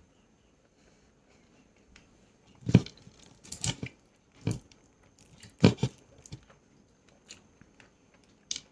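Close-up sounds of a man eating a meal of chicken, rice, dal and papad: irregular chewing and bites, with about half a dozen sharp, crunchy sounds, the loudest about three and six seconds in.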